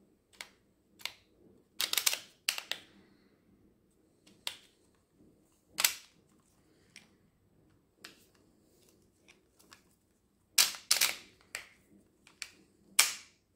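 Sharp plastic clicks and snaps from a Remington MB345C beard trimmer and its comb attachment being handled and fitted, coming irregularly, some in quick bunches, the loudest near the end.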